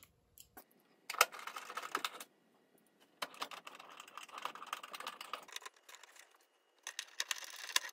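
Screws being turned with a 5/16-inch nut driver into a sheet-metal oven panel: three stretches of quick, fine clicking and scraping, starting about a second in, in the middle and near the end.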